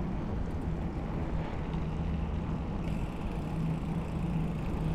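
Steady low rumble of mountain bike tyres rolling over wet paving, with wind on the action camera and a faint steady low hum underneath.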